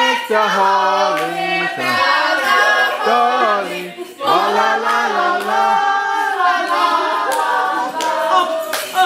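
Several voices singing together, led by a young woman, with held notes and a short break about four seconds in. A few sharp claps come near the end.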